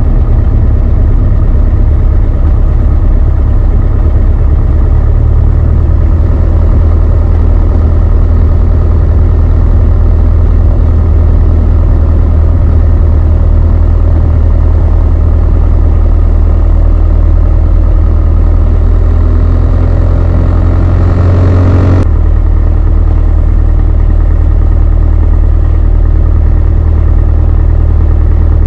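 The Beechcraft Sundowner 180's four-cylinder Lycoming engine heard from inside the cabin, a loud, steady drone. Shortly before the last quarter, a few tones rise in pitch, then the sound cuts off abruptly and the same kind of steady engine drone carries on.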